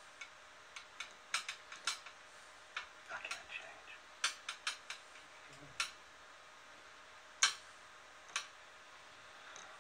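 Screwdriver with a plastic handle and metal shaft clattering and tapping on a glass tabletop as a kitten bats it about, in irregular sharp clicks; the loudest knock comes about seven and a half seconds in.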